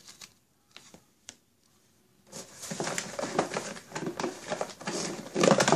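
A few light taps, then, about two seconds in, a hand rummaging in a cardboard box: dense rustling and crinkling of cardboard and packaging, loudest near the end.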